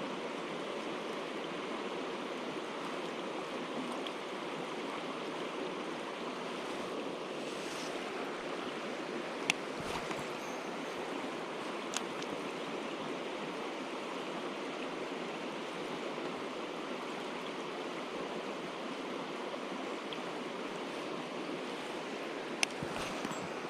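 Mountain stream rushing steadily, with a few short sharp clicks: one about nine seconds in, another about twelve seconds in, and one near the end.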